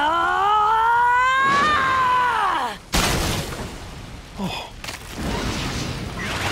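A woman's long scream of pain, rising and then falling in pitch over about three seconds, from a dubbed anime voice. It cuts off at a sudden heavy impact, followed by rushing, crackling battle sound effects.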